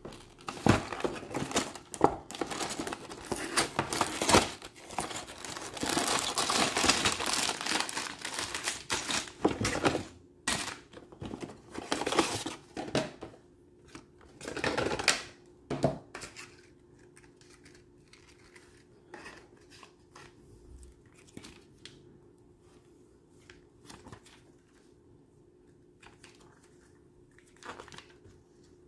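LEGO set packaging being opened: cardboard torn open and plastic parts bags and paper crinkled in a dense crackling run for about the first sixteen seconds. Then only faint rustling of paper as the instruction booklet is handled.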